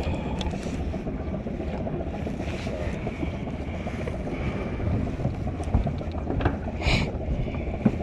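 Wind and water on a fishing boat at sea: a steady low rumble, with a few light knocks and a short hiss about seven seconds in.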